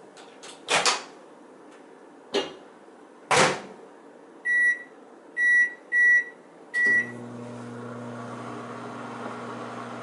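Countertop microwave oven: the door clacks open and shut, four short keypad beeps, then the oven starts and runs with a steady hum.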